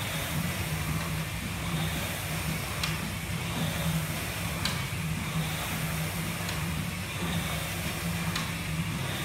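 Air rowing machine in steady use: the fan flywheel whirs, swelling with each pull about every two seconds, with a light click on some strokes.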